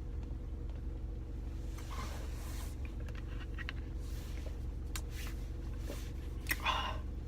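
Car engine running, a steady low hum heard from inside the cabin, with a few faint brief handling sounds over it.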